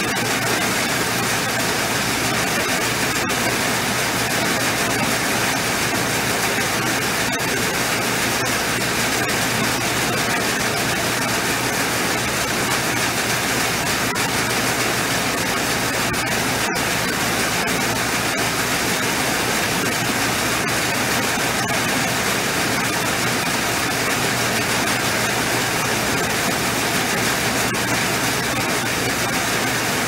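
Tractor engine and belt-driven grain auger running steadily, carrying wheat up the tube and pouring it into a gravity wagon.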